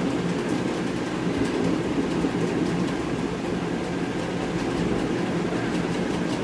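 Steady mechanical hum with a low rushing noise, such as a room fan or air-conditioning unit makes, and a few faint light ticks.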